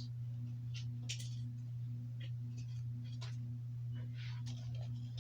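Plastic DVD case being handled and put right: faint scattered clicks and scrapes, over a steady low hum.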